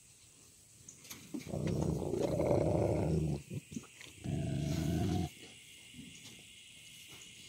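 A dog growling low, twice: a growl of about two seconds, then a shorter one of about a second.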